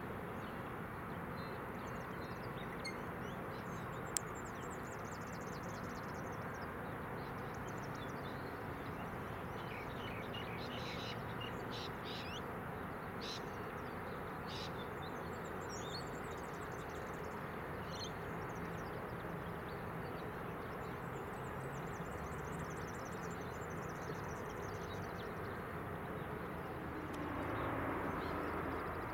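Steady low hum of a distant idling diesel locomotive, with small birds chirping now and then over it. A louder rumble comes in near the end.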